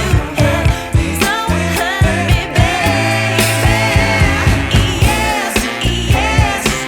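A pop song with a singing voice over a steady drum beat and bass.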